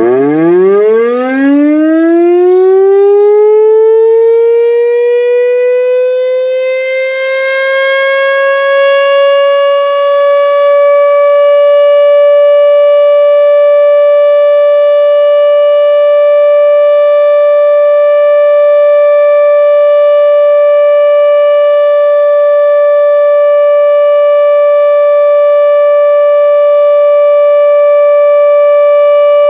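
Federal Signal RSH-10B outdoor warning siren sounding a test: it winds up from a low growl to a high steady wail over about the first ten seconds, then holds one loud, steady tone.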